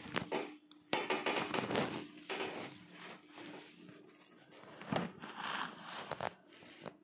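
Plastic shrink wrap stretched over a plastic container crinkling and crackling as the container is handled, in irregular bursts: a long one about a second in and another near the end.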